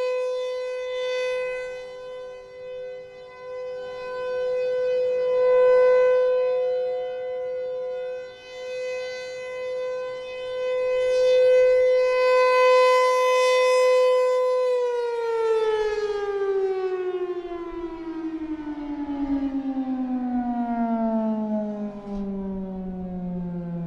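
Federal Signal Thunderbolt 1000 outdoor warning siren sounding a steady single tone that swells and fades in loudness. About fifteen seconds in it begins to wind down, its pitch falling steadily and continuously as the rotor slows.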